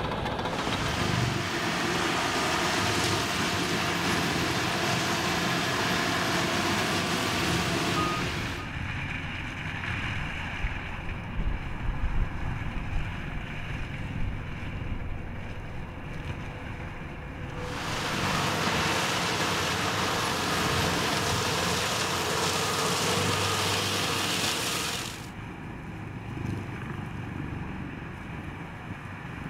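Vermeer FT300 tracked forestry tractor running, its front mulching head shredding brush and saplings, heard as a steady rushing noise. The hiss drops away about a third of the way in, returns past halfway, and drops again near the end.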